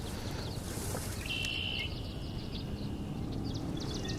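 Songbirds singing in a marsh soundscape: a steady high trill starts about a second in and runs for nearly two seconds, with other short high notes around it. A low steady background rumble lies under the birdsong.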